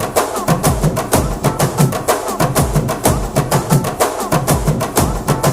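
Background music: an instrumental interlude of a Tamil film song, with fast, steady drumming and percussion.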